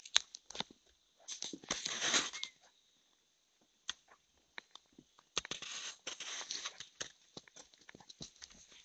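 Footsteps on a dirt forest trail: irregular crunches and clicks, with two longer rustling, scuffing stretches, one about a second in and one after about five seconds.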